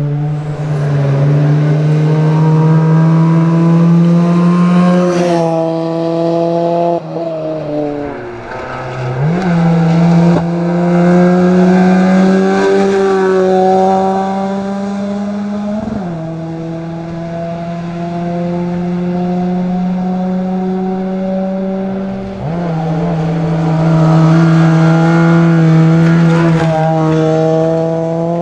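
Rally car's engine at hard throttle, its pitch climbing steadily in long pulls, then dropping sharply and climbing again several times.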